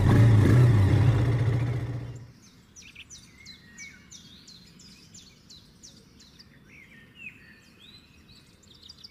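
A motorcycle engine runs with a steady low drone and drops away about two seconds in. After that, birds chirp, a quick series of short high chirps that keeps going to the end.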